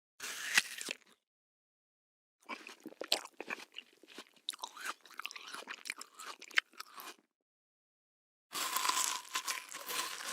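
A single crunchy bite into crisp food, then after a pause about five seconds of crunchy chewing with many small crackles. Near the end a different, denser rustling noise with a faint steady tone starts.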